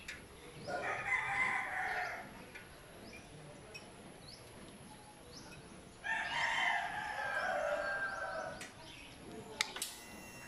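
A rooster crowing twice, two long calls about a second in and again about six seconds in, with faint bird chirps between. Near the end a sharp click is followed by a faint steady whine.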